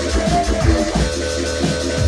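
Drum and bass track played from a 12-inch acetate dubplate: fast breakbeat drums over deep sub-bass hits and held synth tones.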